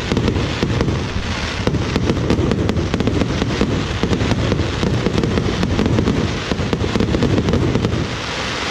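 Fireworks crackling loudly in a dense, continuous barrage of rapid pops over a deep rumble.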